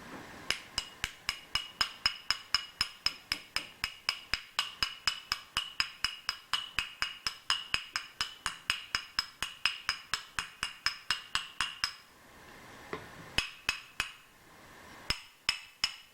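Rapid light hammer taps, about four a second, each ringing briefly, driving a ball bearing into its seat by tapping instead of pressing it. The tapping stops about twelve seconds in, then a few single taps follow near the end.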